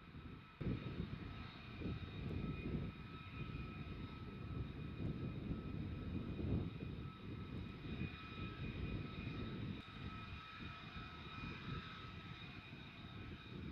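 F-35A fighter's jet engine running: a rumble with a steady high whine above it, cutting in suddenly about half a second in.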